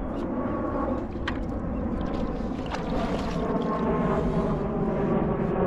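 Steady surf and wind noise on the shore, with a few light clicks.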